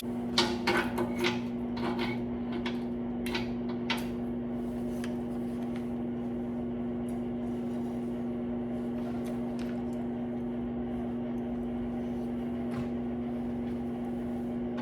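Steady machine hum throughout, with a few light clinks and taps of metal being handled in the first four seconds and a couple more later.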